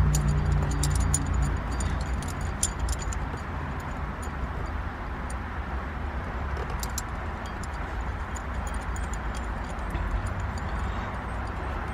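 Light metallic clicks and clinks of small shifter parts and hand tools being handled and refitted, densest in the first few seconds with a few more about seven seconds in, over a steady low rumble.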